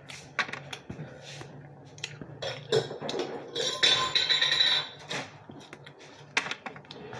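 Close-up eating and handling noises: chewing, with scattered clicks and knocks like utensils and a plate being touched. About four seconds in there is a louder, noisy stretch lasting about a second.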